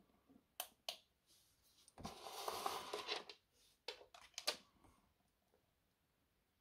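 Two sharp clicks of a camping lantern's push-button power switch, then a rustle and a few light clicks and taps as a charging cable is handled and laid down.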